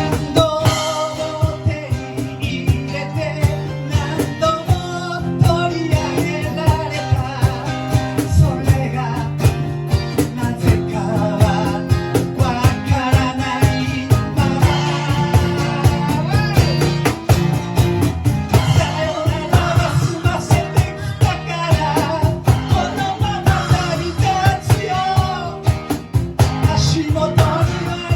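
Rock band playing a song with guitars, singing and a steady drum beat.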